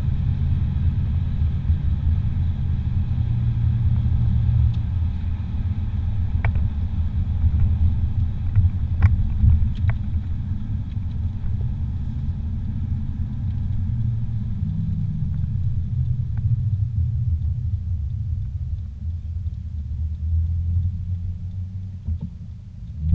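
Steady low rumble of a car driving on a paved road, heard from inside the cabin, with a few faint ticks. It quietens briefly near the end.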